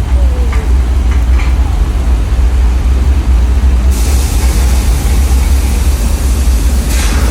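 Staged artificial rain pouring onto the set, turned up to a heavier downpour about four seconds in, over a steady low rumble.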